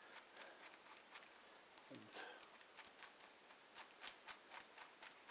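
Light metallic clicks and clinks of a steel M8 bolt and captive nut being handled and screwed together. Several clicks ring briefly, and they come thicker near the end.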